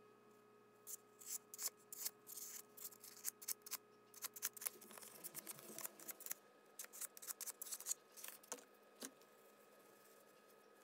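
Quick, irregular scratching strokes of 600-grit sandpaper rubbed by hand over a small metal fork pendant, stopping about nine seconds in.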